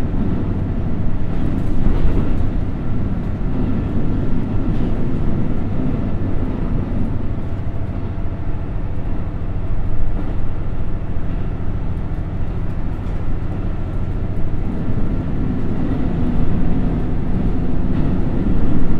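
Cabin sound of a JR Central KiHa 75 diesel railcar running at about 80–90 km/h, heard from a seat directly above its Cummins NTA855-R1 diesel engine. A steady engine drone mixed with wheel and rail noise, with a few knocks from the track. The engine sound grows fuller about fifteen seconds in.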